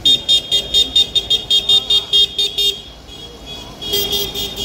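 Horn on a passing tractor beeping in quick pulses, about five a second, for nearly three seconds, then sounding again briefly near the end, over a low engine rumble.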